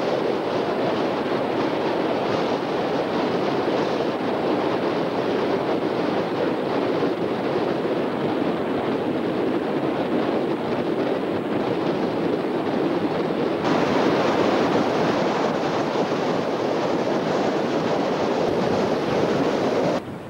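Wind blowing across the camcorder microphone: a loud, steady rush that turns slightly brighter about two-thirds of the way through and drops away sharply at the very end.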